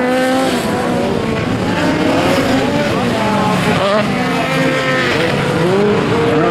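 Several VW Beetle autocross cars racing together, their air-cooled flat-four engines revving up and down over one another as they accelerate and lift off on the dirt.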